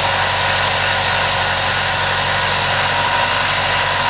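Belt sander running steadily, sanding a small rounded detail onto the end of a wooden guitar tone bar brace: a steady motor hum under an even hiss.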